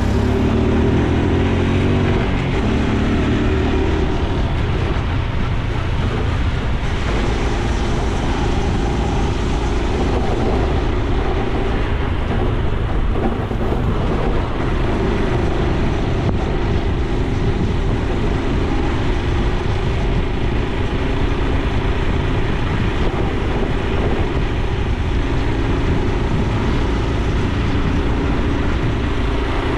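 Honda Super Cub C125's single-cylinder engine and exhaust running while riding along, its pitch shifting with speed, under a steady low rumble of wind and road noise.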